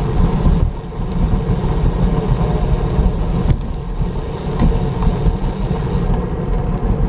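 Steady low rumble of wind and road noise from riding a bicycle, with a brief drop about a second in.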